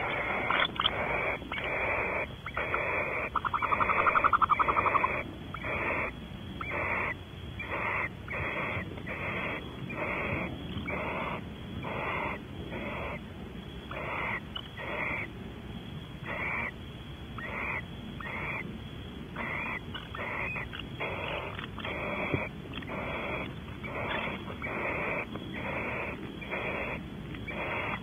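Barn owl giving a long series of breathy, hissing snore calls, about three every two seconds: the food-begging call given to a mate bringing prey. About three to five seconds in, a louder, rapid buzzing trill rises over them.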